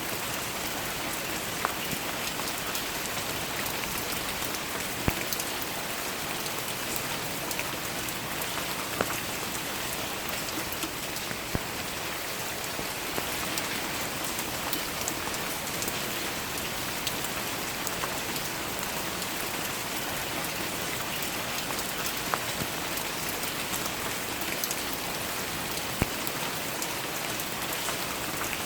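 Steady rain falling and pattering on a surface, with scattered individual drops landing louder now and then.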